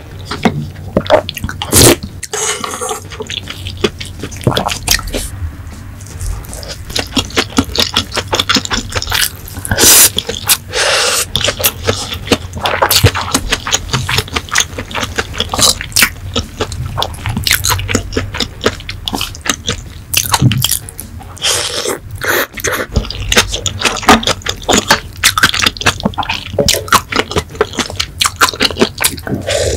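Close-miked chewing and wet mouth sounds of a person eating, a dense run of irregular smacks and crackles, with slurps from a wooden spoon of soupy liquid.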